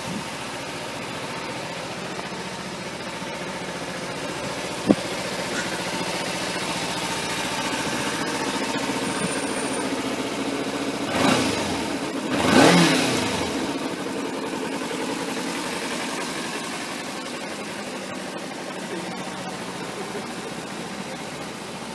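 Stock-exhaust 2013 Kawasaki Z250's parallel-twin engine idling steadily, blipped twice in quick succession about halfway through and falling back to idle. A single sharp click about five seconds in.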